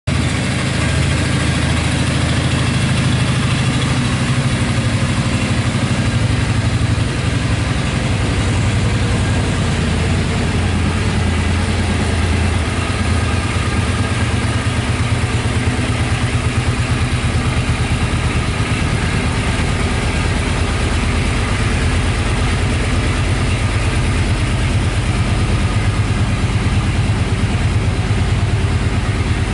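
2006 Suzuki Boulevard C50's 805 cc V-twin engine idling steadily, a low even pulsing beat that holds without revving.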